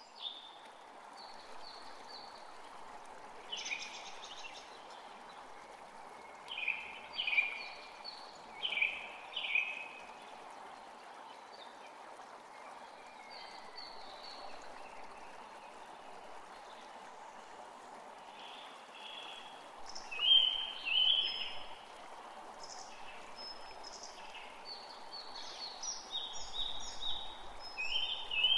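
Short, high bird calls in scattered bouts, loudest about two-thirds of the way in, over a steady hiss of running water.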